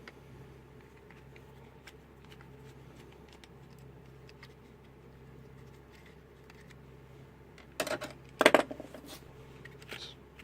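Hand work taking apart a cheap plastic analog multimeter: faint ticks and scrapes as its small screws are worked out, then a short cluster of loud clattering knocks about eight seconds in and a lighter one near the end.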